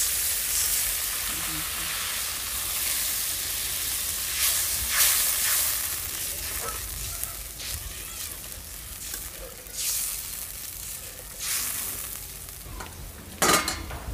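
Hot oil and masala in a metal kadai sizzling hard as water is poured in over frying fish, the hiss dying down over several seconds. A metal spatula stirs and scrapes in the pan a few times.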